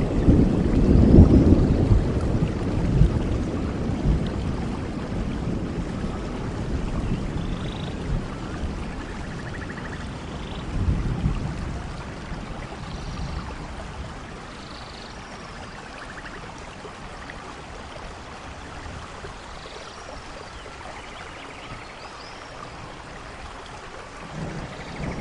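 Rain falling steadily in a forest with rolling thunder: a deep rumble at the start that slowly dies away, a shorter rumble about eleven seconds in, then a quieter, even rain hiss, with thunder building again near the end.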